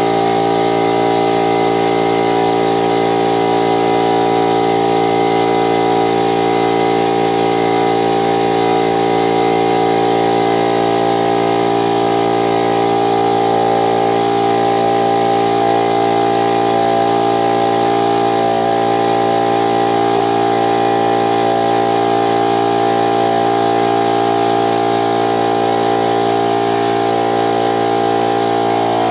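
Piston air compressor running steadily, with an even, unchanging pitch.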